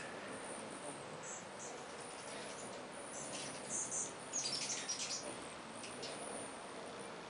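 A crowd of Rufous and Anna's hummingbirds at feeders: high, squeaky chip and chatter calls in short bursts, thickest about four to five seconds in, over a steady bee-like buzz of wings.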